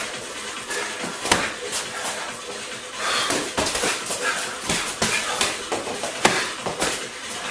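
Gloved punches and kicks landing in a full-contact sparring exchange: an irregular run of dull thuds and slaps, the sharpest about a second in and again about six seconds in.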